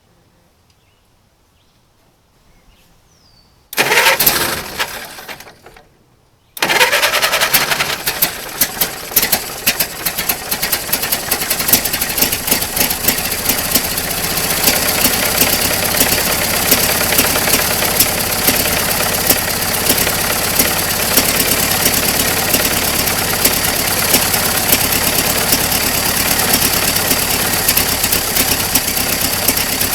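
Ford Model T four-cylinder engine cold-starting for the first time after more than 25 years of sitting: about four seconds in a first burst of running fades out within two seconds, then a moment later it catches and keeps running. At first it fires unevenly with loud irregular pops, then settles into a steadier run.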